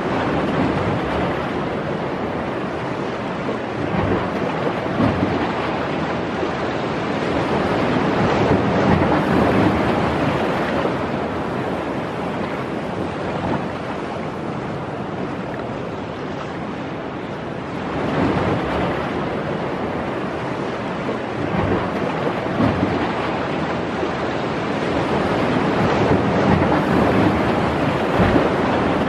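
Ocean surf washing against a rock jetty, a steady rush that swells and ebbs, loudest about a third of the way in, again past the middle and near the end, with wind buffeting the microphone.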